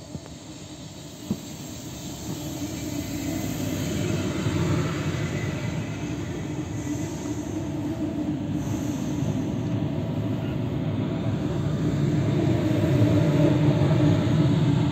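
PKP Intercity EU160 Griffin electric locomotive and its train rolling slowly into the station past the platform: a low rumble of wheels and running gear that grows steadily louder as the locomotive comes alongside. Two short sharp clicks sound in the first second and a half.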